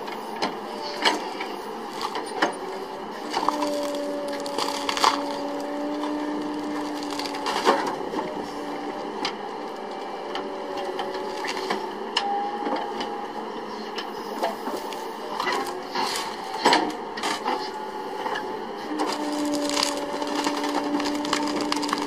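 Wood cracking and splintering in a run of sharp cracks, with a steady machine whine coming in and dropping out in stretches.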